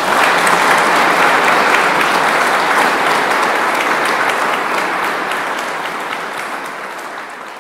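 Audience applauding, loudest at first and gradually dying down toward the end.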